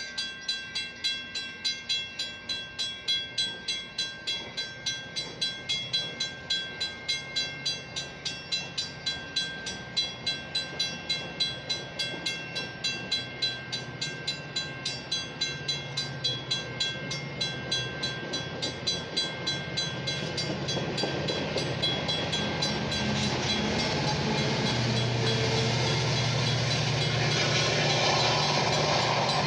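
Railroad crossing bell ringing steadily, about two strikes a second, while a Metra bilevel commuter train passes the lowered gates. In the last third a rising rumble builds up and half covers the bell.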